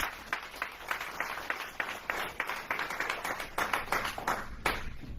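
Audience clapping: a light, scattered round of applause in which individual claps stand out, several a second.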